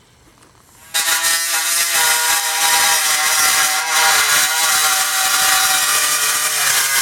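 A loud, harsh, raspy buzzing noise from a handheld noisemaking device that starts abruptly about a second in and carries on with a wavering pitch.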